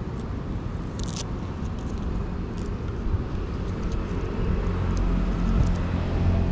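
Steady low rumble that grows louder about four and a half seconds in, with one sharp click about a second in.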